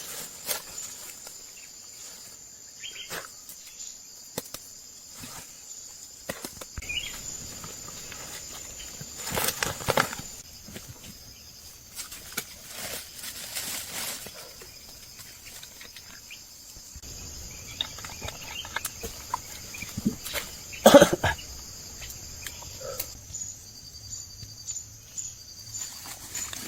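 Outdoor ambience of steady high insect chirring, with scattered rustles and knocks and one sharp knock about twenty seconds in.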